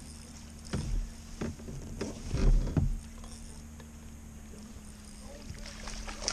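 Knocks and thumps on a fishing boat, the loudest a low cluster about two and a half seconds in, over a steady low hum.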